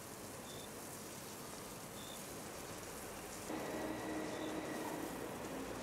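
Water from a garden hose spraying and splashing on a wet paved sidewalk: a steady, rain-like hiss. A steady hum of street traffic gets louder about halfway through.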